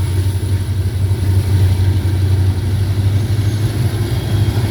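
Loaded rock hopper cars of a manifest freight train rolling past, a steady low rumble with no change in level.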